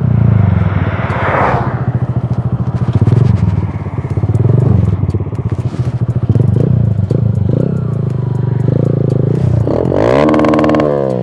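Small single-cylinder motorcycle engine revving up and dropping back several times as the clutch is popped to lift the front wheel for a wheelie, with wind rush about a second in and some clatter. Near the end the revs swoop up and then fall away.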